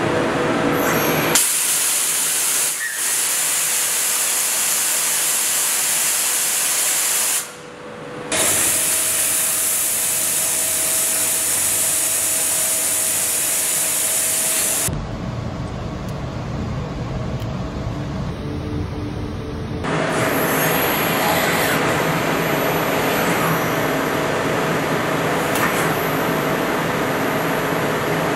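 CNC metal cutting: indexable milling cutters and a lathe boring tool machining steel, a loud steady hiss with a faint steady whine. The sound changes abruptly several times, with a brief drop about seven seconds in, as one cut gives way to another.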